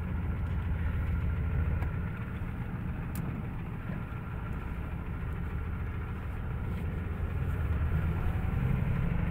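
Ford 7.3-litre IDI turbo diesel V8 pulling the pickup away, heard from inside the cab, its note rising gently as it picks up speed. This engine has a tick that the owner thinks may be a lifter or a rod knock.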